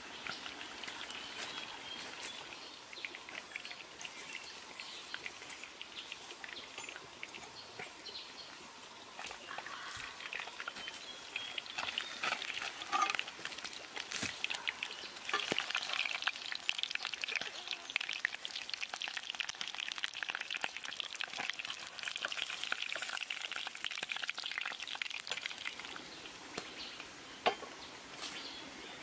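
Fish sizzling in a clay pot over a wood fire: a steady crackling hiss that grows louder about halfway through, with a few sharp knocks.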